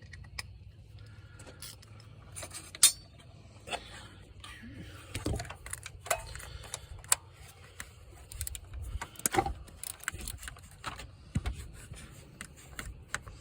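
Irregular metal clicks and clinks of a ratchet and 10 mm socket working the PCV valve's hold-down bolt loose, the loudest click about three seconds in.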